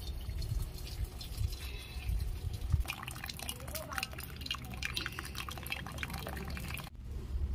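Starch water dripping and trickling out of a tilted pot of boiled rice, drained past its lid into a pot below, with many small drips and clicks.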